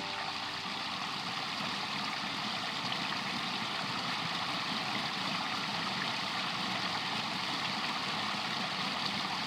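Water running steadily over the rock falls of a newly built pondless waterfall.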